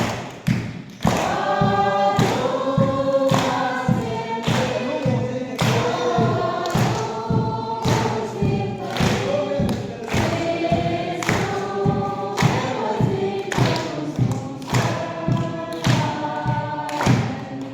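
A choir singing a gospel-style song over a steady thumping beat.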